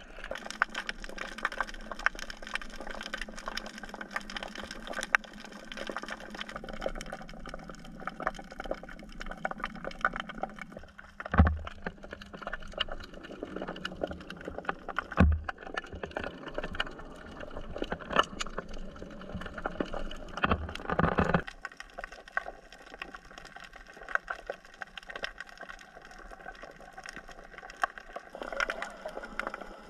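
Underwater sound picked up by a submerged camera while snorkeling: steady water noise full of fine crackling clicks, with two dull thumps about four seconds apart near the middle and a louder swirl of water after them.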